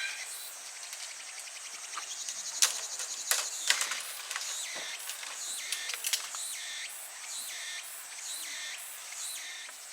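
Outdoor nature sound: a bird calling over and over in quick falling notes, over a steady high insect buzz, with scattered sharp clicks earlier on.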